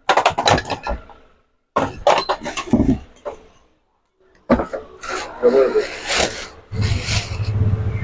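Hard knocks and clatter of vacuum cleaner parts being handled. Near the end a vacuum cleaner motor switches on and runs with a steady low hum and hiss.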